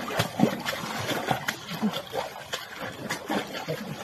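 Water splashing and sloshing in irregular bursts as a giant panda sitting in a shallow stream pool paddles at the water with its forepaws.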